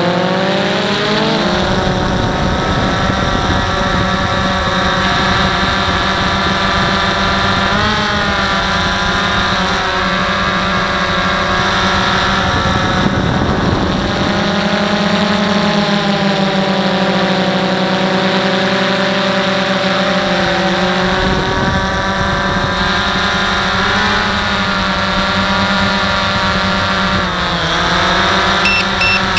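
DJI Phantom 1 quadcopter's four brushless motors and propellers whining, heard close up from the on-board camera, the pitch rising and falling as the throttle changes while it flies. A low rumble on the microphone drops away about halfway through and comes back a few seconds later.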